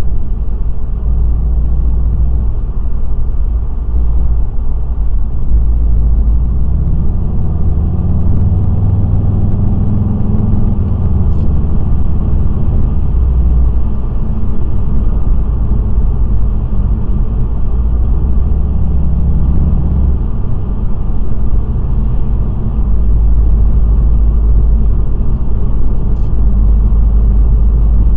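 Steady low road rumble inside a moving car's cabin: tyre and engine noise at highway speed on a wet road. Two faint ticks are heard, one near the middle and one near the end.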